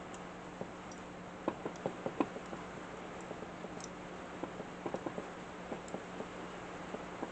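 Scattered light clicks and taps of hand tools and small metal saw parts being handled, in two short flurries, over a steady low hum.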